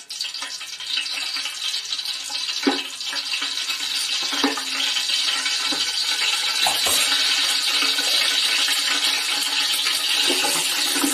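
Ghee and oil sizzling in a hot metal pot, a steady hiss that grows louder about halfway through. A spoon clinks against the pot about three and four and a half seconds in.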